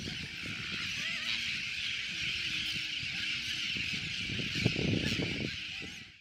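Tern breeding colony: many terns calling at once in a dense, continuous chatter of high, wavering cries, with low gusty rumbling underneath. The sound fades out just before the end.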